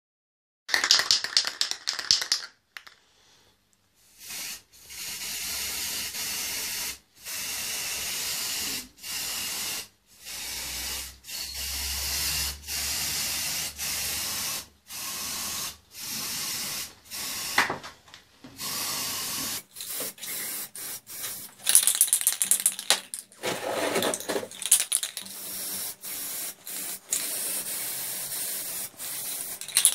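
Aerosol spray paint can hissing in repeated bursts of one to a few seconds with short pauses between, as black paint is sprayed onto PVC tubes. Sharp clicks are mixed in during the last third.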